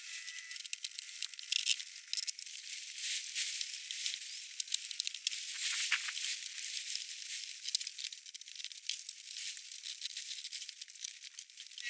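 Old sealant around a Ford E350 van's fixed rear window crackling and tearing as the glass is pushed out of its frame, a dense run of small clicks and snaps.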